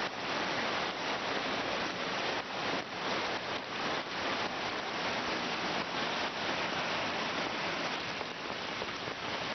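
Rushing muddy floodwater from a swollen stream, with rain falling: a steady, dense water noise with fine spatter.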